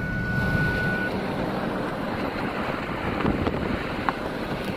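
Steady road and engine noise of a car driving along a road, heard from inside the cabin. A thin, high steady tone stops about a second in.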